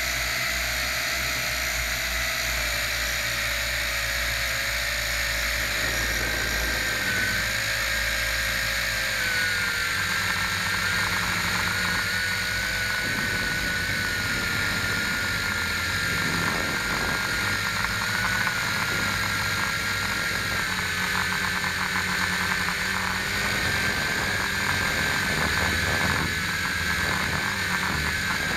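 Electric motors and propellers of a small radio-controlled camera aircraft, heard from its onboard camera: a steady whine whose pitch steps down slightly a couple of times.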